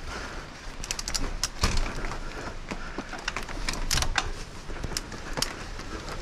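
Mountain bike tyres rolling over wooden boardwalk planks on a tight switchback. Irregular clatters and knocks come from the boards and the rattling bike.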